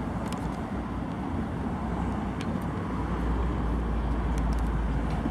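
Steady road traffic noise from passing cars, with a low rumble of wind on the microphone.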